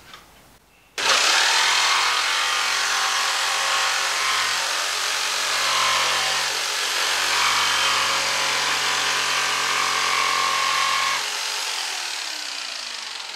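Corded jigsaw starting about a second in and sawing steadily through a laminate floor board, cutting off its tongue. About two seconds before the end it is switched off and the motor winds down.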